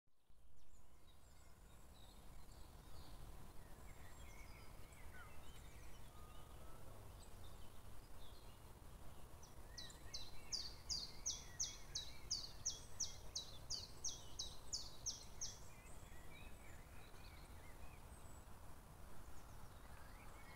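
Outdoor bird ambience over a low rumble, with faint scattered chirps. In the middle a songbird repeats a high, sharp descending note about three times a second for around six seconds.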